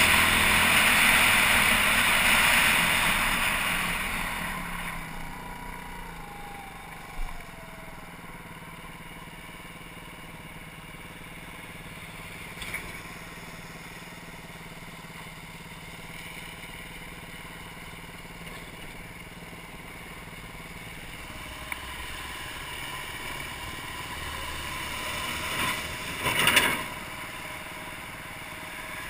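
BaltMotors Motard 200 single-cylinder motorcycle engine and riding noise. The noise is loud at first and drops after about four seconds to a low, steady running sound. Near the end it swells briefly with a sharp knock.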